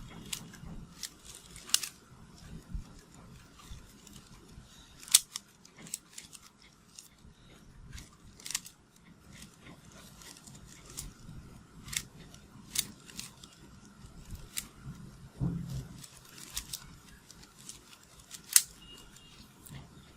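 A 3x3 Rubik's cube being scrambled by hand: its layers turned in quick, irregular twists that make plastic clicks and snaps, a few of them sharp and loud.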